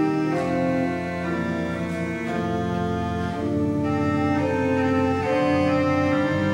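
Organ playing held chords over a steady low bass, the harmony changing about once a second.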